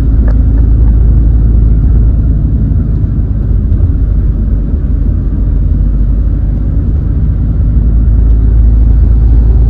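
Car driving along a road: a loud, steady low rumble of road and wind noise.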